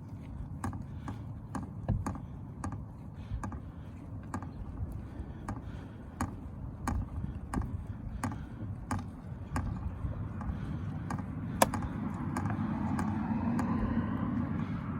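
Screws being driven into a car door speaker mount: light, sharp clicks in a fairly regular rhythm, about two a second. Underneath is a steady low outdoor rumble that swells near the end.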